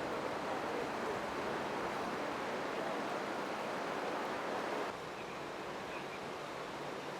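Steady rush of fast-flowing floodwater, a little quieter from about five seconds in.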